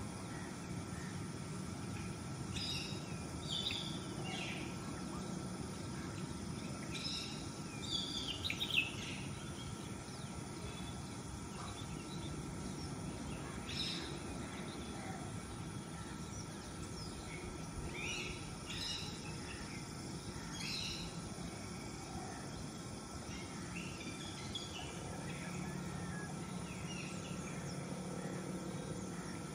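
Small birds chirping in short scattered clusters over a steady low outdoor background hum.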